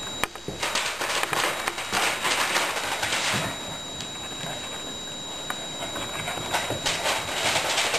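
German Shepherd puppies scampering and tussling on a hard tiled floor, their claws clicking and scrabbling in two bursts of rapid clicks with a quieter stretch between.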